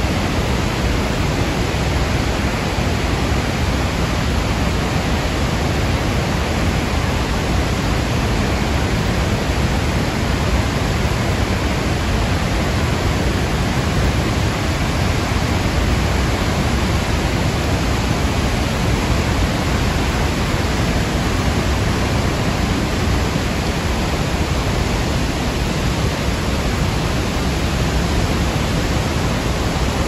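Loud, steady rushing of a large waterfall and its river current: an even, unbroken wash of falling water.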